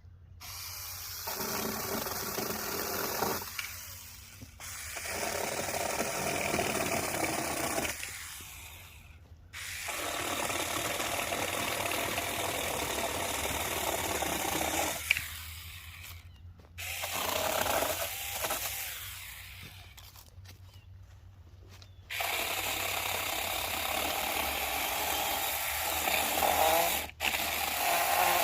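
Saker mini battery-powered handheld chainsaw with a 4-inch bar, run in about five bursts of several seconds each with brief stops between, as it cuts through wood.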